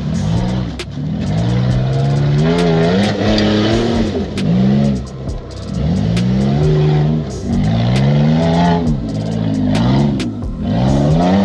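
Off-road vehicle engine revving up and down again and again, its pitch climbing and falling every second or two as it works over rocks, with a few sharp clicks.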